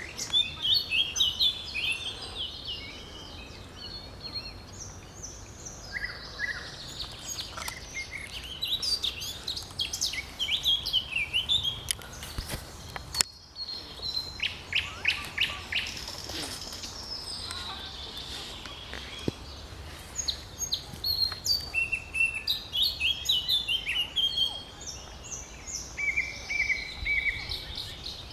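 Several songbirds singing over one another in a spring dawn-chorus style, quick varied phrases overlapping throughout, with a steady low rumble underneath and a single click about thirteen seconds in.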